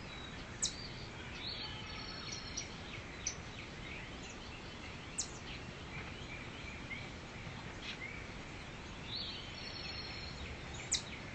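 Forest ambience: a steady background hiss with scattered short bird chirps and calls, a few sharp high chirps standing out about every two to three seconds.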